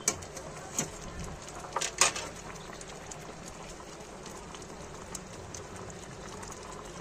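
Sugar syrup boiling hard around whole amla in a steel pan: a steady bubbling hiss full of small pops, with a few sharper clicks in the first two seconds.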